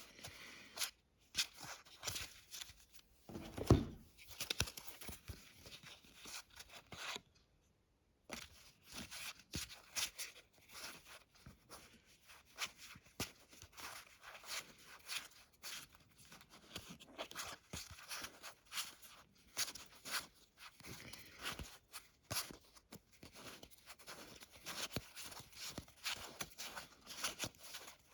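Cardboard and plastic packaging being handled and torn open, with scattered rustles, tears and taps and a short pause about seven seconds in.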